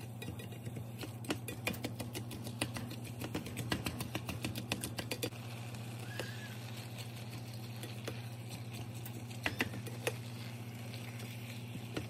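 Utensil tapping and scraping against a cast iron skillet as ground chicken and onion are broken up into crumbles. Quick irregular clicks, busiest in the first few seconds and again about ten seconds in, over a steady low hum.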